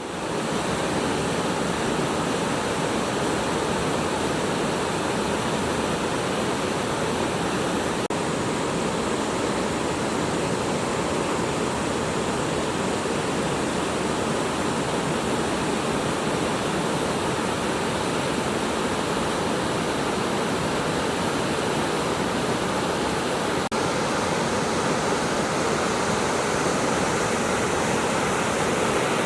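Mountain river rushing over rocks: a steady, even roar of running water with no break.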